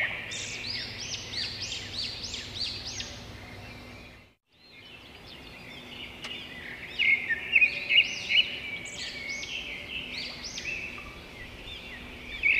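Songbirds chirping in quick runs of short rising-and-falling notes. The sound cuts out briefly about four seconds in, then the chirping resumes.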